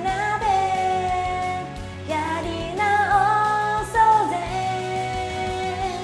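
Pop karaoke backing track with a female voice singing a few long held notes over it.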